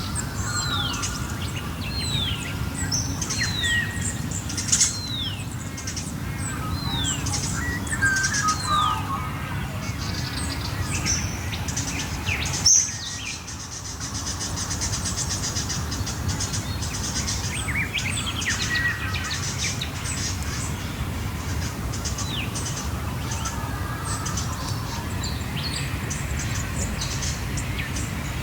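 Dawn chorus of Australian wild birds: many birds chirping and calling at once, with one bird repeating a clear downward-sliding whistled note about once every three-quarters of a second in the first several seconds. A steady low rumble runs underneath, and there is a sharp click with a brief dip about halfway through.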